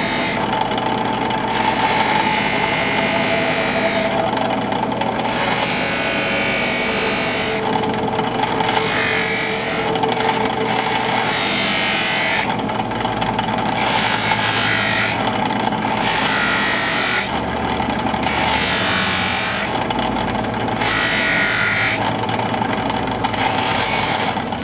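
Drill press running with a disc wheel in its chuck: a steady motor hum, with repeated scuffing bursts about every one to two seconds as a wooden briar pipe is pressed against the spinning wheel and lifted off.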